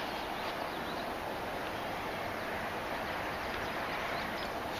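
Steady outdoor background noise with a few faint, brief high chirps.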